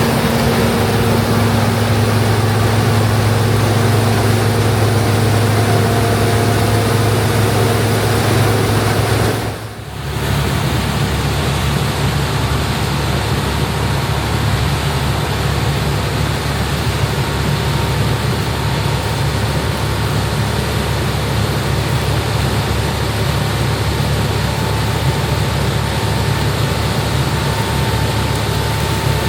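International Harvester 1460 combine running steadily while harvesting corn: a loud, even drone of diesel engine and threshing machinery with a deep hum. About ten seconds in the sound dips briefly and comes back with a slightly different tone.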